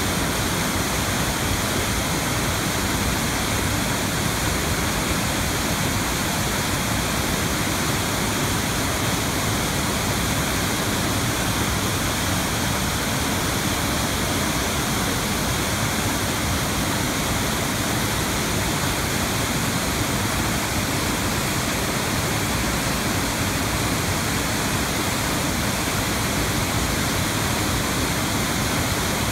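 Waterfall in spate, brown floodwater pouring over a rocky fall into a churning pool: a steady, unbroken rush of water.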